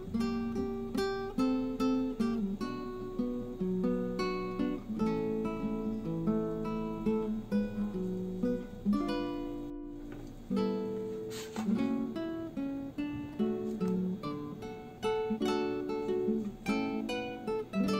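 Background instrumental music: an acoustic guitar playing a run of plucked notes at an even pace.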